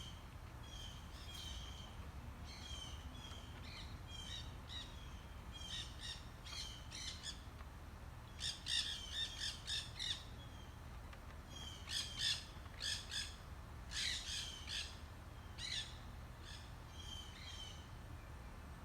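Birds calling: repeated short chirping calls, broken by clusters of loud, harsh squawks about halfway through, over a low steady background rumble.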